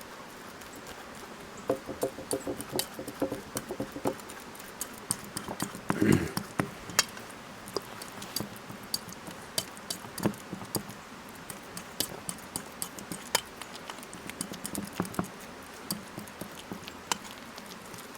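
Fork mashing bananas, with many irregular sharp clicks and taps of the fork, a quick run of ringing taps about two seconds in and one heavier knock near the middle.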